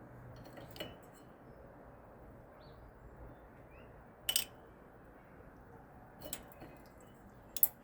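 A few scattered clicks and knocks from a hugger ceiling fan's motor housing being handled and fitted into place, over a steady low hiss; the loudest knock comes about halfway.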